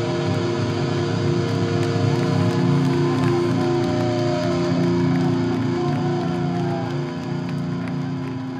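Live rock band playing loudly, electric guitar to the fore over bass and drums, with chords held ringing.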